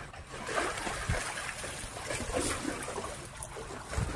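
Water trickling and splashing, with a dull knock about a second in and another near the end.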